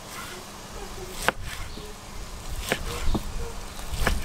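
Chef's knife slicing cooked meat on a wooden cutting board, the blade knocking on the board four times at irregular intervals about a second apart.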